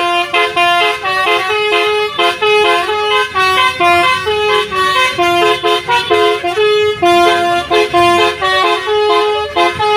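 Indonesian bus telolet horn, a multi-tone air horn, playing a fast, loud tune of short notes changing several times a second.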